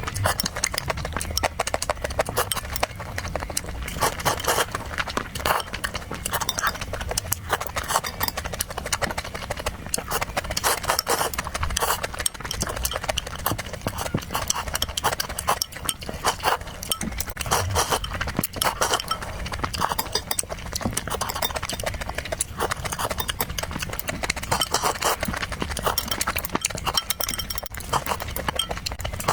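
Close-miked eating: chewing and mouth smacking, with quick clicks in close succession.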